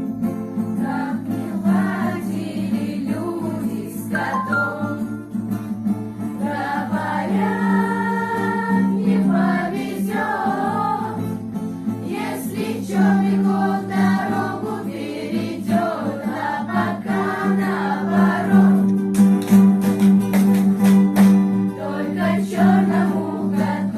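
A group of beginner students singing a song together with steady instrumental accompaniment.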